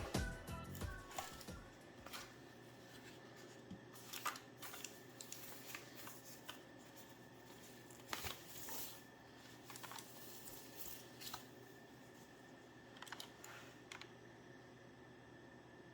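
Faint, scattered rustling and light clicks of packaging and a mechanical keyboard being handled, after background music fades out in the first second or two.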